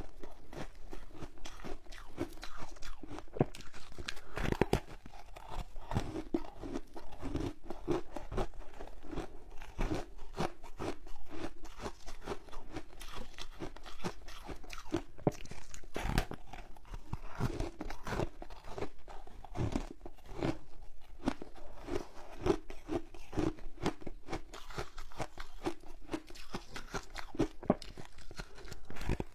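A slab of passion-fruit ice being bitten and chewed: a continuous run of short, irregular crunches.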